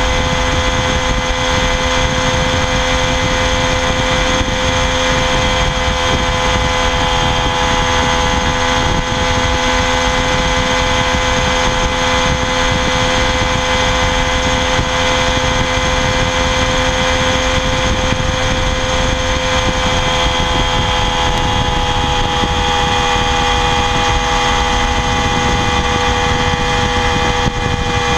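Triumph Daytona 675R's 675 cc inline three-cylinder engine running steadily through its stock exhaust, its pitch easing down slightly about twenty seconds in.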